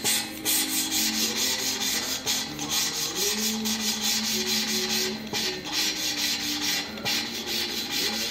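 Intake valve of a Lycoming O-320 cylinder being hand-lapped into its seat: the valve, coated with fine lapping paste and spun on a stick, grinds against the seat with a gritty rubbing in quick, even strokes, about four or five a second. This is the final fine sanding of the valve seat so that the valve will seal.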